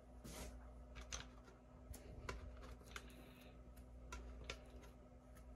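Faint, irregular snips and rustles of small scissors cutting tangled hair from a vacuum roller brush.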